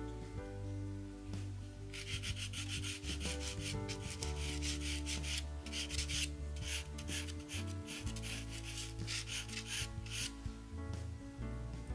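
Pastel pencil drawing on textured pastel paper: quick scratchy strokes, about four a second, from about two seconds in until near the end, over soft background music.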